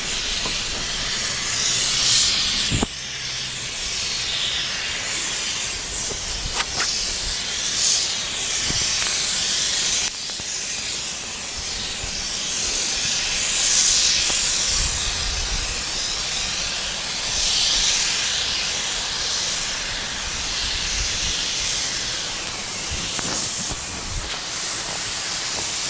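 Steady hiss of wind blowing across a handheld device's microphone, swelling in gusts every few seconds.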